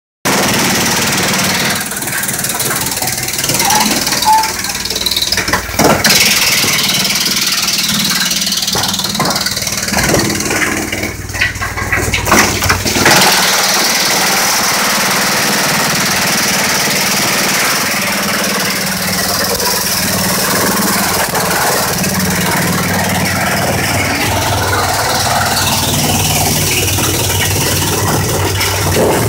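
Klöckner wood chipper running with a steady machine hum, chipping wooden slabs and edgings fed in on its conveyor. For the first dozen seconds there is irregular loud cracking and crunching as the wood is bitten off. After that it runs on more evenly, with a hiss of chips spraying out of the discharge.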